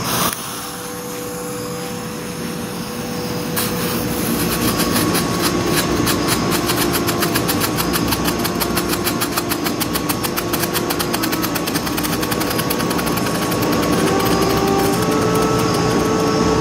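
Strobe flash pot firework burning: a steady hiss as it takes light, then from about three and a half seconds in a fast, continuous crackle of strobe pops, many a second.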